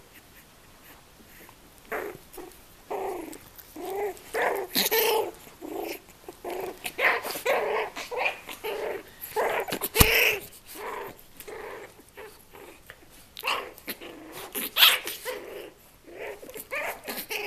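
Australian Terriers, a mother and her 20-day-old puppy, play-fighting: a run of short growls and barks, with one sharp knock about ten seconds in.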